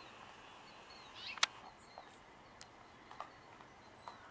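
Faint outdoor ambience with a few short, high bird chirps, the clearest about a second and a half in, and several sharp clicks, the loudest right after that chirp.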